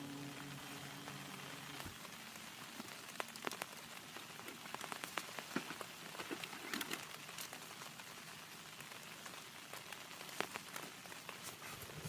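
Heavy rain falling, with many separate drops striking a nearby surface as sharp taps over a steady hiss. A low steady hum stops about two seconds in.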